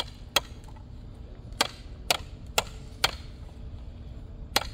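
A hammer striking the top of a wooden ramrod to tamp the load down the barrel of a small muzzle-loading cannon: seven sharp knocks, unevenly spaced, with two longer pauses between them.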